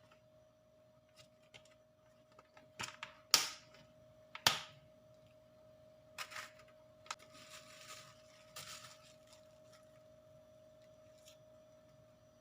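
A few sharp knocks and clicks of objects being handled and set down, the two loudest about three and four and a half seconds in, followed by brief rustling scrapes, over a faint steady hum.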